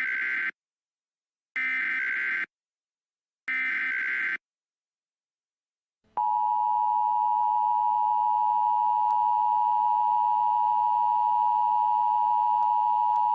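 Emergency Alert System activation tones: three short buzzy bursts of SAME digital header data about two seconds apart. After a short silence, about six seconds in, the steady two-tone EAS attention signal starts and holds, announcing an Emergency Action Notification.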